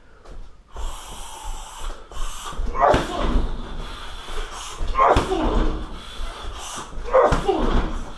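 Shin roundhouse kicks landing on a 60 kg heavy bag, a heavy thud about every two seconds. Each strike comes with a short shout from the fighter that falls in pitch.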